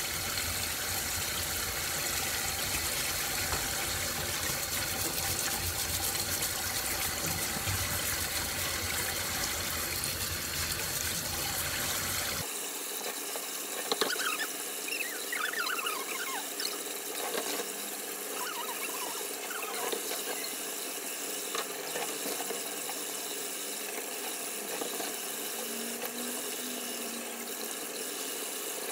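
Kitchen tap spraying water into a stainless steel bowl in a sink while a plastic brush scrubs abalone shells. Short squeaks come in from about halfway through.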